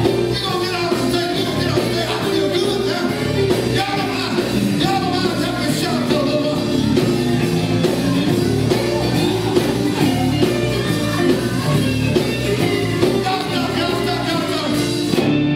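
Live amplified band music: male voices singing over electric guitar, bass and a steady beat.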